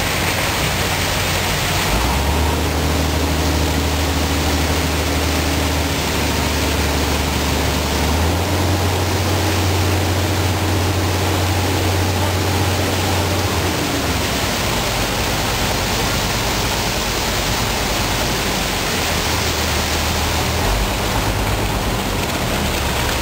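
Concrete mixer running while wet concrete slides down its chute and drops through a steel grate into a hopper: a steady rushing noise over a low engine hum that shifts in pitch several times as the engine speed changes.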